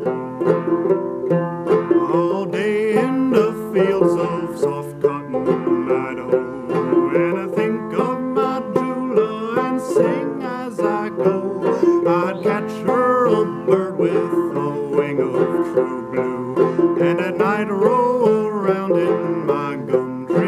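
Fretless curly-maple minstrel banjo playing a lively old-time tune, a dense run of plucked notes with some sliding pitches.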